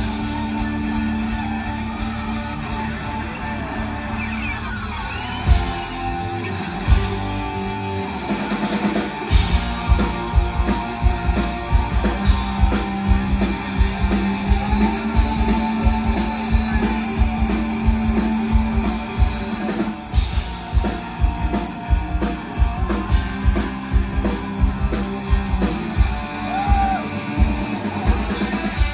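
Live rock band playing: electric guitars and bass over a drum kit. The guitars ring out in sustained chords at first, and a steady drum beat comes in about nine seconds in.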